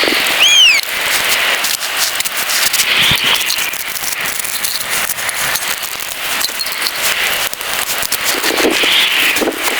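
Rain pattering on a tent, a dense, steady crackling patter, with a brief high falling chirp about half a second in.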